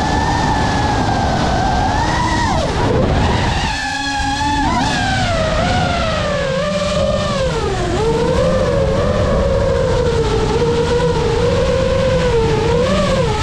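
FPV quadcopter's brushless motors and propellers whining, the pitch rising and falling with the throttle and dropping sharply about three seconds in, again around eight seconds, and near the end. A rumble of wind noise runs underneath.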